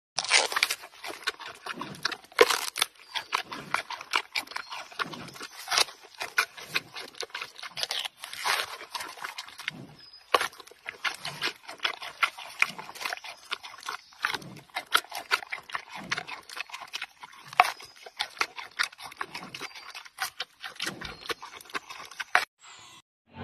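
Giant panda chewing on a bamboo stalk: a quick, irregular run of sharp cracks and crunches with duller munching between them.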